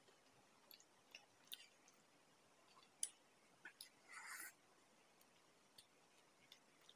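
Mostly quiet, with faint mouth clicks from eating, a sharper click about three seconds in, and a short sip of milky tea from a glass about four seconds in.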